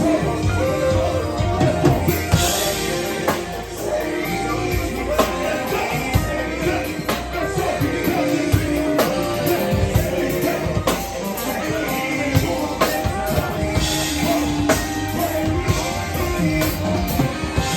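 A song with drums, guitar and singing, played loud through the venue's sound system in a live set.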